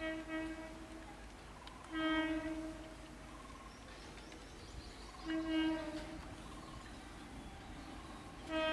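Horn of an Indian Railways electric multiple unit (EMU) sounding short single-tone blasts, each about a second long and about three seconds apart, as the train approaches. The steady rumble of the train running over the track carries on between the blasts.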